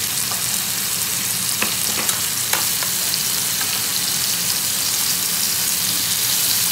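Oil sizzling steadily in a kadhai as cut potato pieces fry, with a few light clicks of a steel spoon against the pan as the spices are stirred in.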